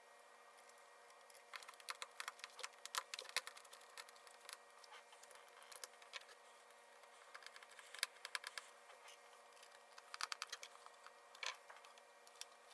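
Faint runs of small, sharp plastic clicks and taps from a laptop being handled.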